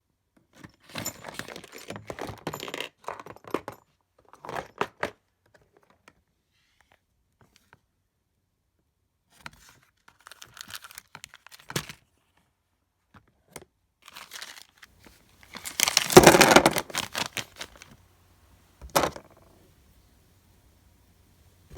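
Small parts and electronics handled on a workbench: scattered clicks, rattles and rustling, with a loud tearing rip a little after the middle and a shorter one about three seconds later, as Velcro strips are pulled apart to mount the speed control.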